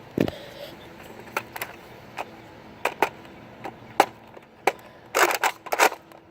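Plastic clicks and clacks of a Nerf Rival Apollo blaster being handled and primed. A low thump comes just after the start, then scattered single clicks, then a quick run of louder clacks near the end.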